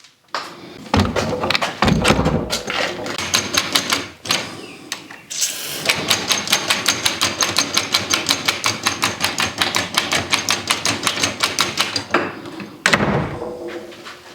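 A few knocks and scrapes, then a long run of rapid, even mechanical clicking, about six clicks a second for some six seconds, ending with a louder noisy burst near the end.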